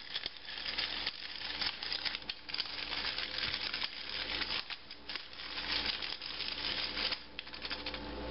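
Hand-twisted pepper mill grinding peppercorns: a rapid, grainy crackle of fine clicks, with a few short breaks as the grip changes.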